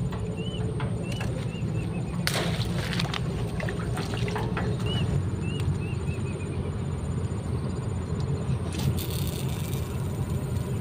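A steady low rush of open-air noise, with a small bird giving quick runs of short chirps that fall in pitch, once near the start and again about halfway. Two brief hisses cut in, one about two seconds in and one near the end.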